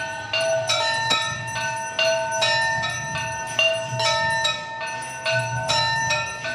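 Temple bells rung repeatedly, about two strikes a second. Bells of at least two different pitches ring on over one another.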